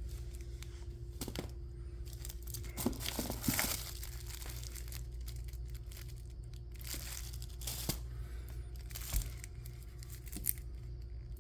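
Crinkling and rustling of firework packaging being handled and pulled out, in scattered short bursts with a few clicks, over a steady low hum.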